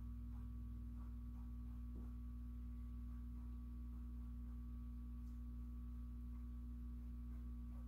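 Steady low hum with a fainter, higher steady tone above it, unchanging throughout.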